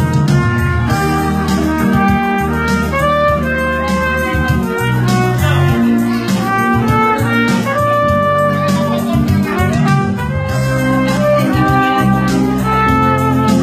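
Trumpet playing a melody in held notes over an electronic Yamaha keyboard accompaniment with chords and bass.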